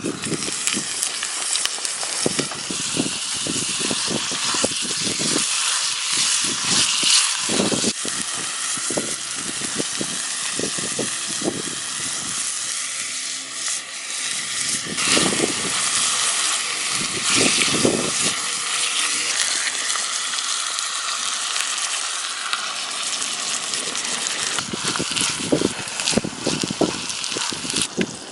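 Food sizzling and frying in an iron mess tin over a campfire, a steady hiss broken by frequent short knocks.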